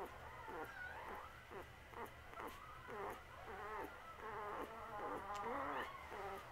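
Newborn wolf-dog puppy making a run of short squeaky whimpers and grunts, about three a second, each bending in pitch.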